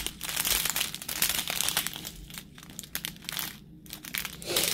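Small plastic zip-top bags of diamond painting drills crinkling as they are handled and squeezed, briefly quieter twice in the second half.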